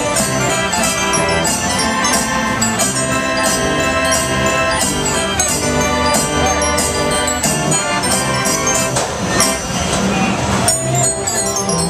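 Stinson Mighty M band organ playing a tune: sustained pipe notes with drum beats keeping a steady rhythm, and a brief rush of percussion about nine seconds in.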